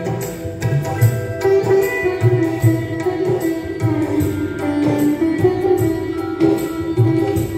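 Live band playing an instrumental passage: a sitar melody over a steady tabla and drum rhythm.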